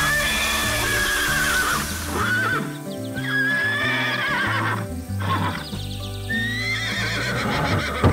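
Horse whinnying several times, each call long and wavering, over background music.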